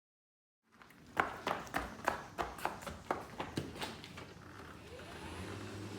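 A quick run of about ten sharp taps, roughly three a second, starting about a second in and dying away by about four seconds, followed by a steady low hum of a car engine running.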